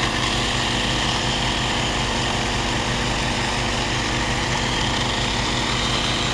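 Small 6-inch cordless electric mini chainsaw cutting steadily through a branch about 3 inches thick, with a steady low engine running underneath.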